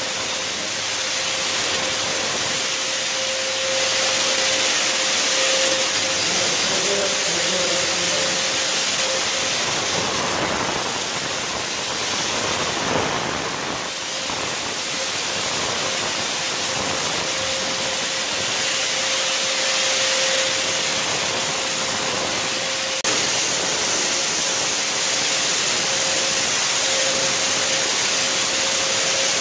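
Handheld electric disinfection fogger running steadily: a constant hiss of spray over a steady motor whine.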